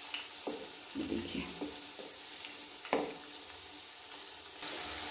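Banana flower pakoras sizzling as they shallow-fry in hot oil in a kadai, while a wooden spatula turns them, with one sharp knock about three seconds in. The sizzle grows louder near the end.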